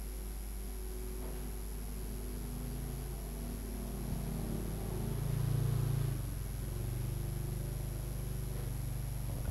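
A motor vehicle's engine going by, growing louder to a peak about halfway through and then easing off, over a steady low hum.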